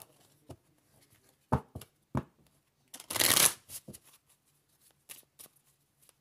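A deck of oracle cards being shuffled and handled: a few separate sharp card snaps, then a brief dense burst of shuffling about three seconds in.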